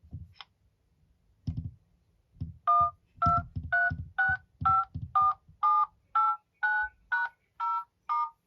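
Mobile phone keypad dialling tones: a number keyed in as about a dozen short two-tone beeps, roughly two a second, the pitch pair changing from digit to digit, each with a low tap of the key press. A few soft taps come before the dialling starts.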